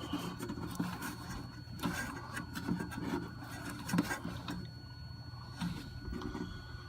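Irregular rubbing and scraping handling noise with scattered sharp clicks and knocks, over a steady low hum.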